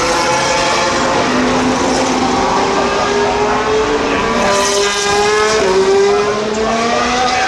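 Formula One cars' turbocharged V6 engines running at speed on track. Several engine notes overlap, rising and falling in pitch as the cars accelerate and pass, loudest about six seconds in.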